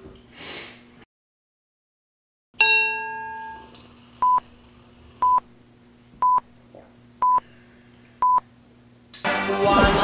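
Edited sound effects: a bright chime rings out and fades, then five short electronic countdown beeps, one each second, all at the same pitch. Near the end a loud burst of effect sound cuts in and music begins.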